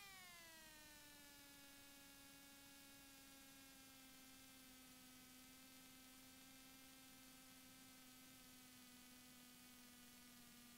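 Faint whine in the Piper Cherokee 160's intercom audio, dropping in pitch over the first second as the engine is throttled back for the touchdown, then holding steady through the landing rollout.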